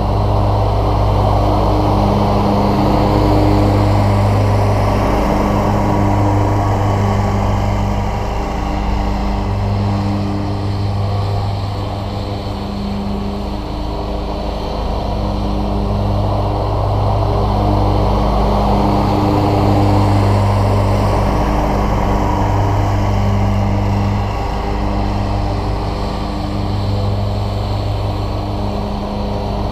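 Scag Cheetah zero-turn riding mower running steadily while cutting grass, its engine note getting slowly louder and fainter as the mower circles the lawn.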